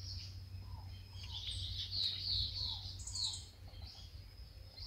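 Wild birds calling: runs of short, high, falling chirps repeating in quick succession, bunched through the middle, with fainter lower notes between, over a steady low rumble.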